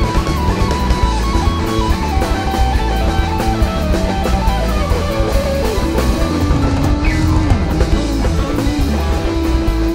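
Live jam-band rock: drums and bass under a lead line that steps downward in pitch, sliding between notes about halfway through.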